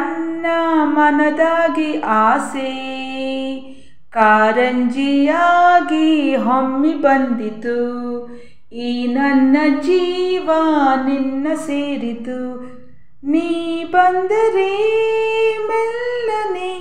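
A woman singing a song solo and unaccompanied, in four long phrases with short breaths between them.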